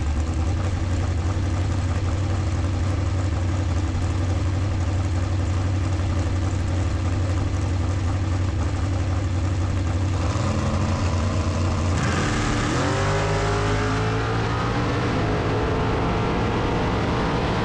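Dragster engines running at a low, steady idle. About twelve seconds in, an engine revs up in a rising sweep and holds at higher revs as the cars move forward.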